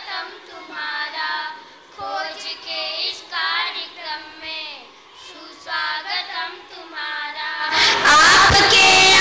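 A group of young girls singing together into microphones. Near the end a much louder crowd sound of many voices breaks in over the singing.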